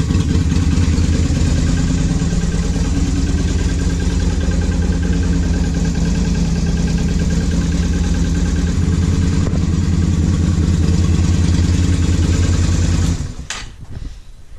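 Yamaha XV250 Virago's 249 cc air-cooled V-twin idling steadily, then switched off about 13 seconds in, the sound dying away quickly.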